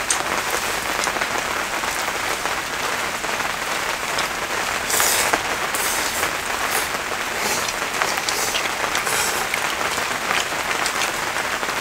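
Steady rain falling, a dense even hiss, with a few brief sharper ticks about five seconds in.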